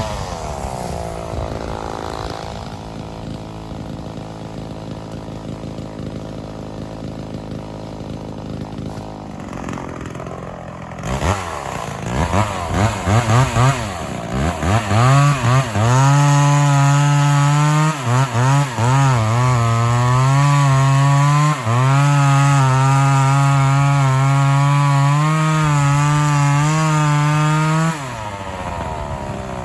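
Vintage Homelite XL-400 two-stroke chainsaw idling, then revved in a few quick blips and held at full throttle cutting into oak, its pitch wavering and dipping as the chain loads up in the wood. It drops back to idle near the end.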